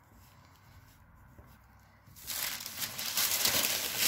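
Thin pattern paper rustling as it is handled on the table. It starts about halfway through after a quiet start and is loud and uneven.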